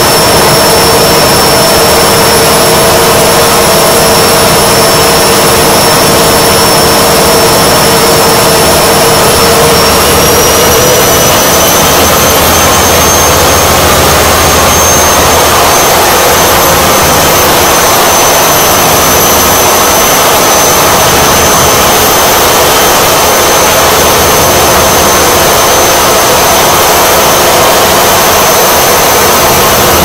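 Old front-loading washing machine on its spin cycle: a loud, steady whirring hum with a high whine that rises in pitch about ten seconds in, then holds.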